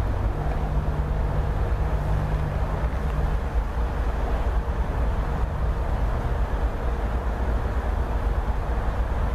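Diesel locomotive running as it slowly approaches, a steady low engine rumble.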